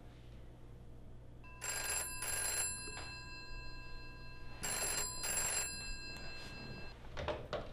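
Corded landline telephone ringing twice, each ring a quick double burst, about three seconds apart. A few short knocks and rustles follow near the end.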